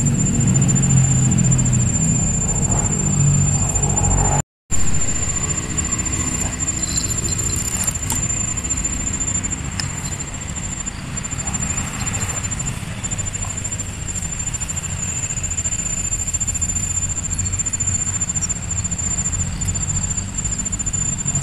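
Outdoor riverbank ambience: a steady high-pitched whine over a low rumble, cutting out for a moment about four and a half seconds in.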